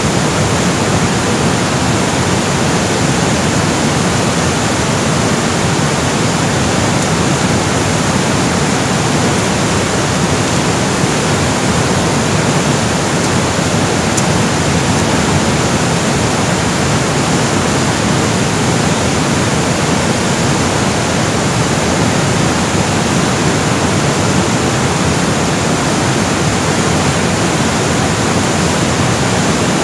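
Fast-flowing water rushing steadily and loudly, an unbroken even hiss with no distinct events.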